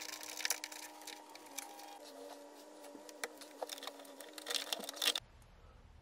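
Small clicks and scrapes of a screwdriver and wire ring terminals being fastened to the screw terminals of a blade fuse block, over faint steady tones. The clicking is busiest at the start and again near the end, then stops suddenly, leaving a low hum.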